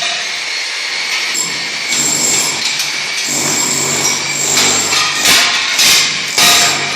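Tiling work with hand tools: a steady noisy hiss throughout, then three sharp knocks about half a second apart near the end.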